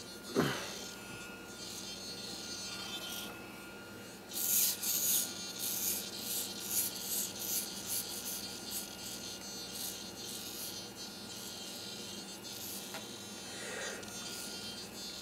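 A DJI Phantom 2 Vision quadcopter being shaken about by hand, giving a run of quick, irregular rustling and rattling bursts in the middle of the stretch. Under it runs a faint steady high-pitched electronic whine.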